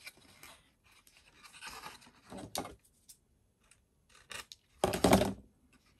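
White cardstock being handled and pressed together with soft rustling, then scissors cutting through the card in short snips near the end, the loudest about five seconds in.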